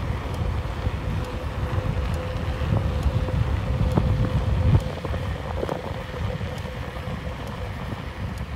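Car driving on a new asphalt road: a steady low rumble of tyre and engine noise with wind buffeting the microphone, and a faint steady hum that fades out near the end.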